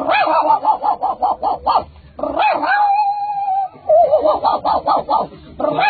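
A man imitating a small dog with his voice: quick yapping barks at about six a second, a drawn-out whine held for over a second in the middle, then another run of yaps.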